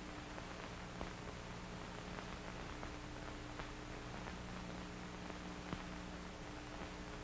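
Faint steady hiss and low hum of an old film soundtrack, with a few soft clicks, about a second in and again near six seconds in.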